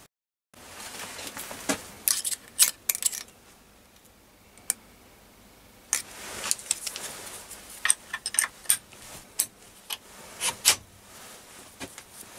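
Scattered sharp metallic clinks and taps of hand tools being handled at a stationary lathe: a steel spanner and rule used at the toolpost and carriage while setting the depth stop. The clinks come irregularly, bunched in the first few seconds and again through the middle.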